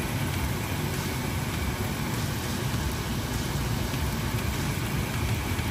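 Steady sizzling of chicken and leeks frying in a pan as their moisture cooks off.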